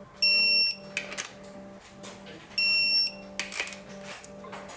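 Digital torque wrench beeping twice, a high half-second beep each time a rod cap bolt reaches the 10 ft-lb seating torque, with short clicks after each beep.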